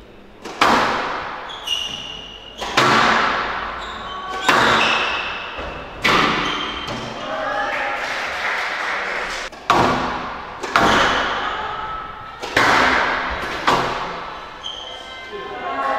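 Squash rally: the ball cracks off rackets and the court walls every second or two, each hit echoing in the court, with a few short high squeaks.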